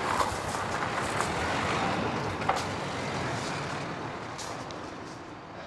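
Small white van driving off, its engine and tyre noise passing and fading steadily as it moves away.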